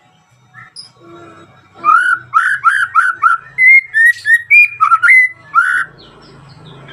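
White-rumped shama singing a loud run of about a dozen clear whistled notes, each a quick up-and-down slur, starting about two seconds in and stopping near six seconds. It is the song used to call a rival.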